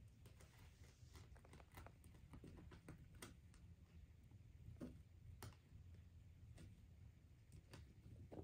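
Near silence, with faint, scattered light taps and rustles as kittens paw and bat a small toy on carpet and a mat.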